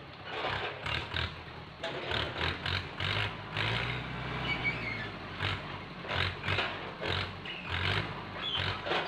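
Farm tractor's diesel engine running, its note rising and falling under the load of the hydraulic crane grabber as it swings and drops oil palm fruit bunches into a trailer, with irregular knocks and scrapes.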